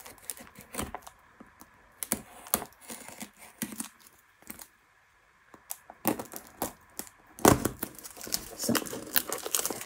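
A craft knife scratching and clicking as it slits the seal along the edge of a cardboard box, in short scattered strokes. About seven seconds in, louder rustling and crinkling as the box and its packing are handled and opened.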